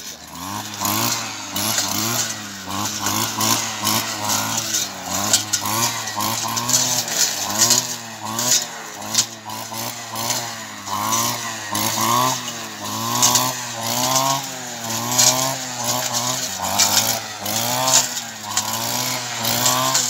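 Petrol brush cutter running hard while cutting through weeds and scrub, its engine revving up and down about once a second as the cutter is swung side to side.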